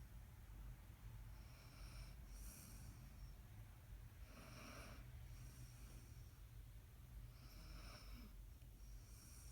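Faint snoring, with a slow, noisy breath about every two and a half to three seconds, over a steady low hum.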